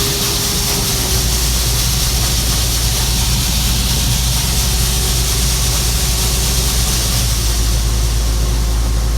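Gleaner M2 combine's diesel engine running steadily: a low, even drone with a steady hiss of air over it.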